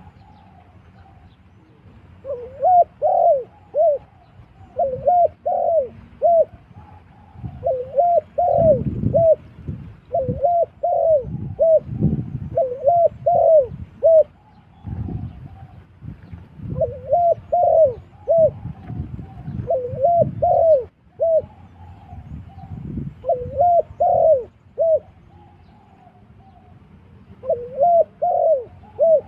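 Spotted dove cooing: short phrases of three or four quick arching coos, repeated over and over with brief pauses between them.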